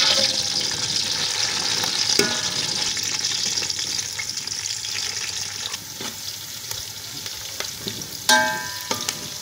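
Sliced onions sizzling in hot ghee in a metal pot while a spoon stirs them. The sizzle is loudest as the onions go in and dies down over the next few seconds, with light scraping of the spoon against the pot.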